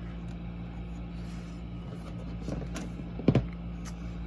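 A desk lamp's shade and housing being handled: a steady low hum with a few faint ticks, then one sharp click a little over three seconds in.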